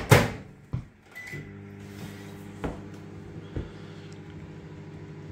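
A microwave oven's door is shut with a knock, a short beep sounds about a second later, and the microwave starts running with a steady low hum, a few faint knocks over it. It is giving a microwave Oreo cake a few more seconds because it is not yet cooked through.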